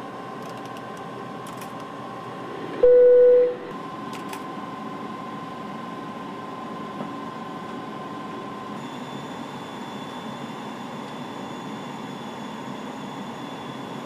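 Steady airliner cockpit background noise, a hum and hiss with a faint steady whine. About three seconds in, a single loud electronic alert tone sounds for under a second.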